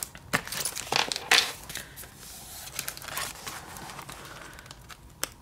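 Sheets of scrapbook paper in a paper pad rustling and crinkling as pages are turned and handled, with several sharper rustles in the first two seconds, softer handling after, and a short tap near the end.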